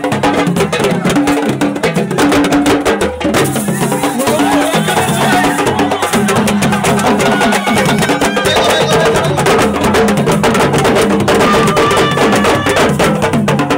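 Lively music with dense, fast percussion: rapid clicking strokes over a steady pitched melody.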